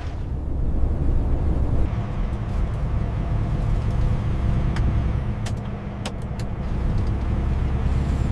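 Heavy truck's diesel engine running with a steady low rumble, and a few short sharp clicks a little past the middle.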